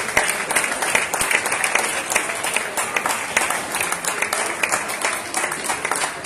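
Spectators clapping and applauding.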